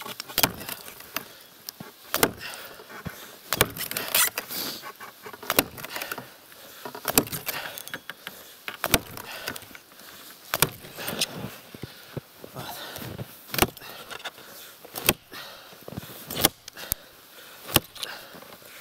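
An axe chopping into a dry, dead log: a sharp chop about every one and a half seconds, around a dozen in all, with chips of wood crackling between strokes.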